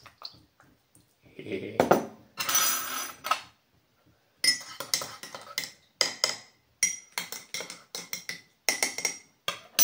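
A metal teaspoon stirring in a ceramic mug, clinking sharply against its sides about two to three times a second from about four and a half seconds in. Before that, about two seconds in, there is a louder stretch of noise.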